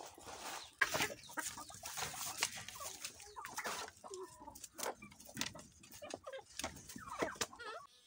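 Domestic chickens clucking in short calls while feeding, with many sharp taps of beaks pecking at feed in a plastic tray.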